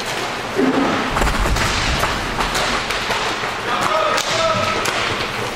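Inline hockey game in play: a steady clatter of sticks, puck and skates on the rink with scattered sharp clicks, and a heavy thud about a second in. A voice calls out twice near the end.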